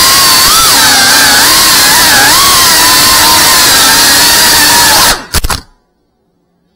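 Tiny whoop FPV drone's small motors and propellers whining loudly, the pitch rising and falling as the throttle changes. About five seconds in the whine stops abruptly with a few sharp knocks.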